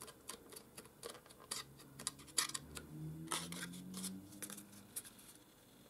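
Red cardstock box being pressed and turned in the hands: a string of light clicks, taps and rustles of card against fingers, with a faint low tone rising slightly in pitch from about a second and a half in until near the end.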